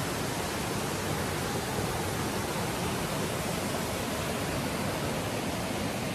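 Steady rush of a woodland waterfall pouring down a rocky cascade into a fast-flowing creek, an even, unbroken wash of water noise.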